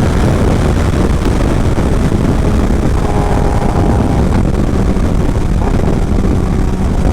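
Kawasaki ZX-10R's 998 cc inline-four through a short SC Project exhaust on the move, a loud rumble mixed with heavy wind rush. A steady engine tone rises out of it briefly about halfway through and again at the end.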